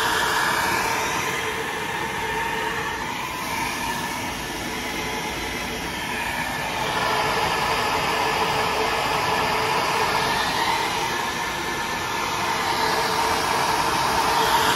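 Saenz flow bench running, its motors pulling air through the port of an AFR 205 small-block Ford aluminium cylinder head at a test depression of about 28 inches of water: a loud, steady rush of air with a hum. Its tone shifts a few times, and it gets a little louder about seven seconds in.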